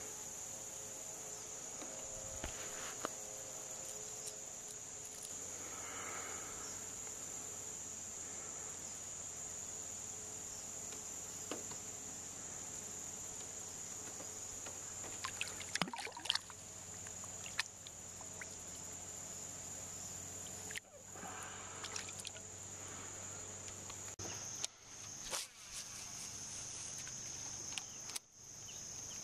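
Insect chorus, a steady high-pitched drone, with scattered sharp clicks and knocks from handling around the middle and near the end.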